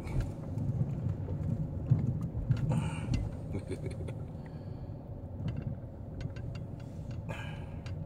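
Car running and rolling slowly, heard from inside the cabin: a steady low engine and road rumble with scattered small clicks and rattles.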